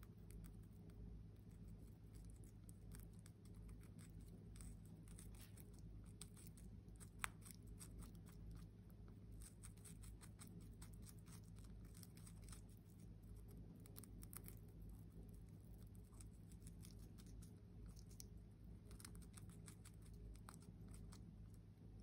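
White-bellied caique parrot chewing and tearing a fresh pea pod with its beak: faint, scattered crackling and snipping clicks, with one sharper click about seven seconds in.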